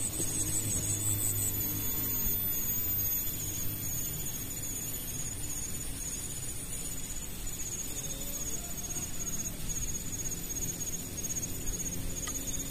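Insects chirping in a steady, evenly repeated high-pitched pulse over a low, steady rumble.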